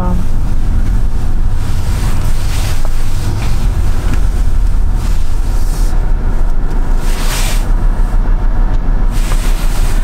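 Road and engine noise inside a moving car's cabin: a steady low rumble.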